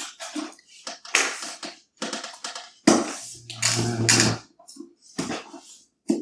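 Cardboard laptop box being cut and pried open by hand: an irregular run of scrapes, rustles and taps on the taped seam, with a longer grinding scrape about three seconds in.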